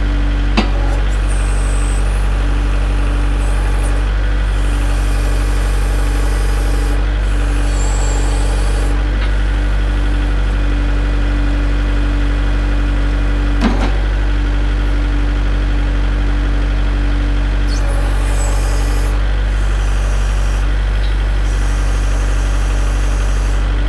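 Kubota L4701 tractor's diesel engine running steadily while it powers the BH92 backhoe's hydraulics, the note shifting slightly late on. Two sharp knocks cut through, one just after the start and one about halfway.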